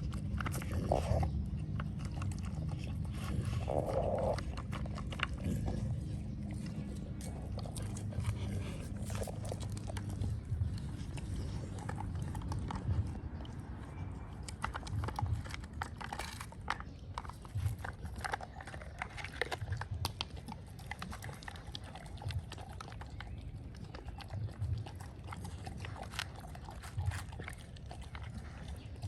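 A dog working an Outward Hound Brick Puzzle, a plastic treat-puzzle toy: scattered clicks and knocks of the plastic bricks being shifted and clattering, with some chewing of treats.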